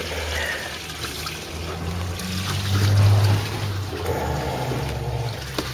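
Water trickling and splashing into an aquaponics fish tank, its surface foamy with bubbles, over a low hum that swells about three seconds in.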